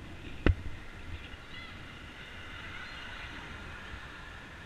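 Street traffic and road noise from a moving bicycle: a steady rush, with one sharp knock about half a second in.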